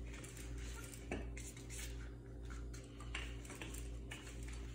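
Wooden rolling pin rolling out scallion pancake dough on a countertop: soft repeated rolling strokes with a few faint clicks, over a steady low hum.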